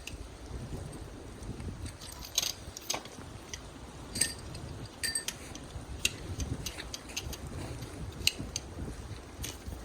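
Irregular metallic clinks and knocks, about a dozen, some with a short ring, over a low rumble.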